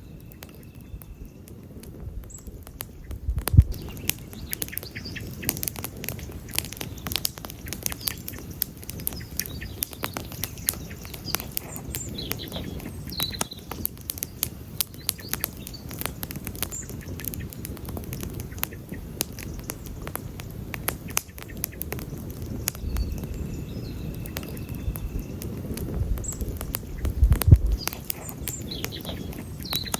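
Wood campfire burning, with frequent sharp crackles and pops over a low rumble of flame. A louder low thump comes about three and a half seconds in and again near the end.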